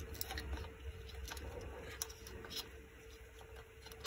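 Faint light clicks and rubbing as a small plastic tape reel is handled and fitted onto a Phonotrix 88 pocket tape recorder, then one sharp, loud snap about four seconds in.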